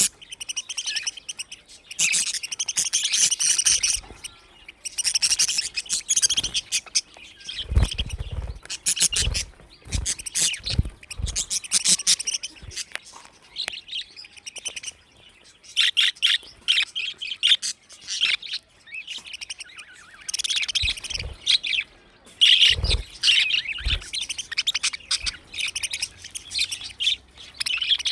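Budgerigars chirping and warbling in busy bursts with short pauses between them, with a few dull low thumps mixed in.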